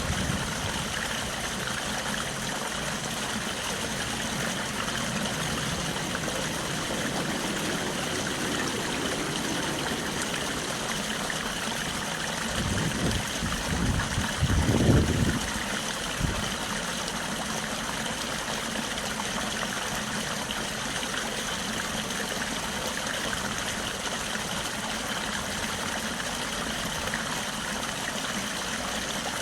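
Stream water rushing steadily. Near the middle, a louder low rumble swells and fades over a few seconds.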